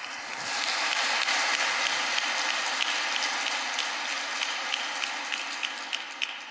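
Audience applauding. The applause swells about half a second in, then thins into scattered single claps and dies away near the end.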